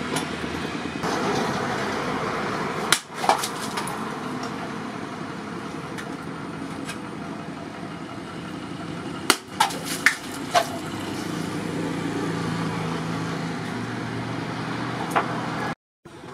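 A hand-forged knife blade chopping down onto a wooden stump: two sharp strikes about three seconds in, a quick cluster of four or five around the middle, and one more near the end. A steady engine-like rumble runs underneath.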